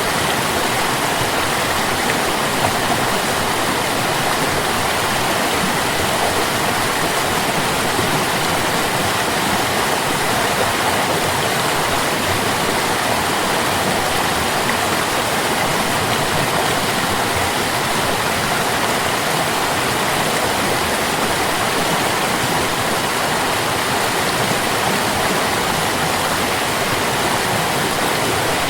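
Stream water flowing in a steady, unbroken rush, even in level throughout.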